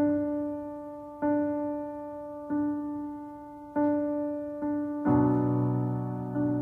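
Solo piano playing a slow intro: one note struck over and over about every second and a quarter, each left to ring and fade, then a fuller chord with a low bass note about five seconds in.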